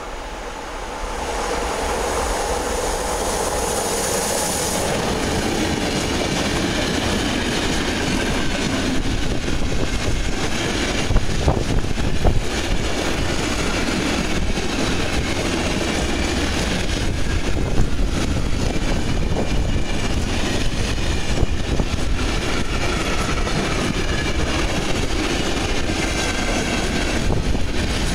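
A freight train hauled by an HŽ series 1141 electric locomotive passes close by, growing louder over the first two seconds with a high whine for a few seconds as it nears. A long string of covered hopper wagons then rolls past with steady rumbling and wheel clatter on the rails, broken by occasional sharp clanks.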